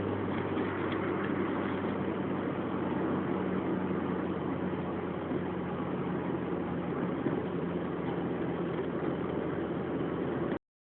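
Nissan S14.5's engine and exhaust while driving, running at steady low revs with an even note; it cuts off abruptly near the end.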